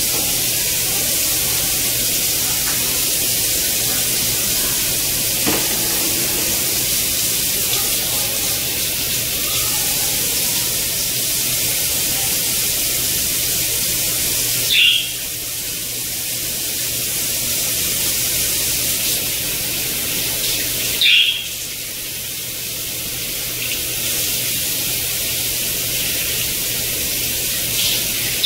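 Kitchen faucet running steadily into a stainless steel sink as hands work under the stream. Three short, sharper sounds break through: about halfway, about two-thirds of the way through, and at the end.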